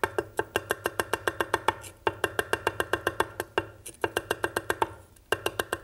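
Chinese cleaver chopping carrot slices into julienne strips on a wooden cutting board: quick, even knocks of the blade on the wood, about seven a second, in runs broken by brief pauses.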